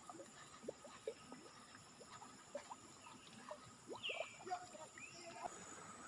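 Faint, scattered short chirping calls of small animals, with a faint steady high tone behind them.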